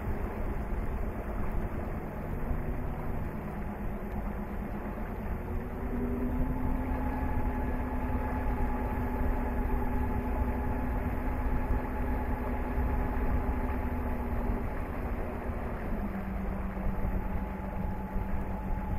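Electric boat motor humming under way over a steady rush of water and wind. Its whine steps up in pitch and gets a little louder about six seconds in, then settles slightly lower near the end.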